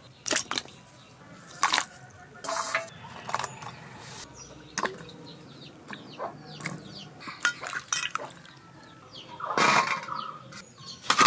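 Hands washing vegetables in water in a steel bowl: splashing and dripping, with a series of sharp clinks and splashes as wet vegetables are dropped into steel dishes, the longest splash near the end.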